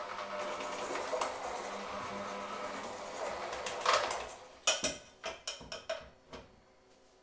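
Electric hand mixer with dough hooks running steadily as it kneads bread dough in a stainless steel bowl. The motor stops about four and a half seconds in, and a quick series of sharp knocks and clicks follows.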